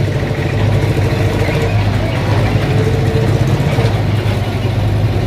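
A large engine running steadily with a low hum, with a faint higher tone that is held through the middle.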